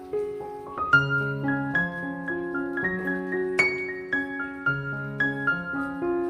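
Background piano music: a slow melody of single struck notes over held lower notes.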